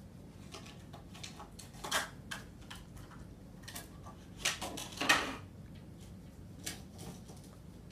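A foundation blending brush worked over the face in circular strokes, giving a few short brushing and rubbing sounds at irregular moments, loudest around five seconds in, over a faint steady room hum.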